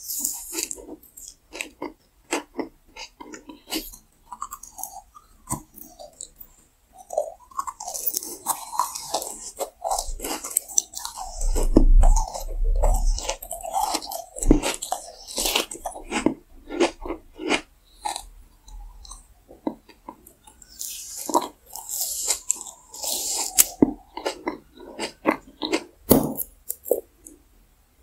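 Close-miked ASMR eating sounds: candy and gummy sweets being bitten, crunched and chewed, with many sharp crackling clicks and wet mouth sounds.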